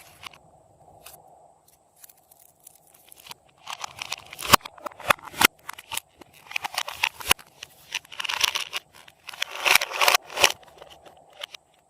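Slime being squished and stretched by hand, giving bursts of sticky crackling with sharp pops and clicks. It starts about four seconds in and comes in waves until near the end.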